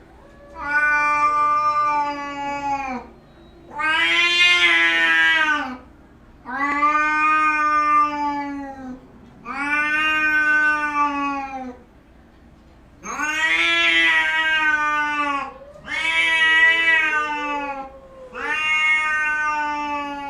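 Cat yowling: seven long, drawn-out calls of about two seconds each, following one another with short pauses.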